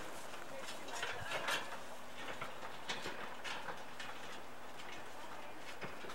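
Horses walking on a rocky dirt trail, with scattered irregular knocks of hooves and footsteps.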